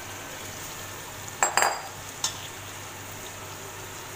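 Metal slotted spatula clinking against a metal cooking pot as soaked rice is pushed into it: a quick cluster of clinks about a second and a half in and one more shortly after, over a soft steady sizzle of the frying dal and masala.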